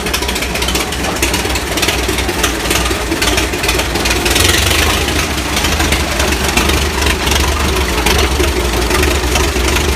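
International bulldozer's engine running steadily, its low rumble getting heavier about four seconds in.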